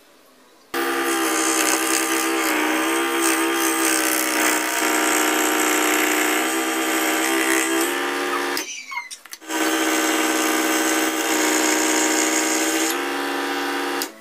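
Electric scroll saw running with a steady buzz as its blade cuts through a thin board. It starts abruptly, stops for about a second past the middle, runs again, then cuts off just before the end.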